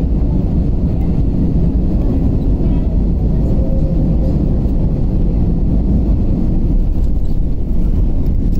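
Airliner cabin noise as the plane rolls along the runway after landing: a loud, steady low rumble of the engines and the wheels on the runway.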